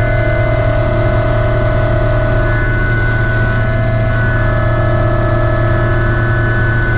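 Ultrasport 555 turbine helicopter in flight, heard from inside the cockpit: a steady turbine whine made of several high tones over a loud, constant low drone, with the main tone dipping slightly in pitch partway through.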